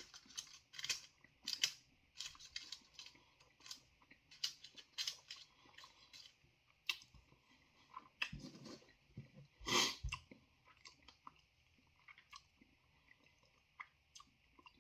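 A person chewing a piece of chili-laced chocolate close to the microphone: many short, crisp mouth sounds, densest in the first half, with one louder one about ten seconds in.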